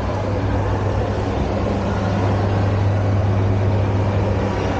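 Shopping-mall interior ambience: a steady low hum under a constant wash of background noise.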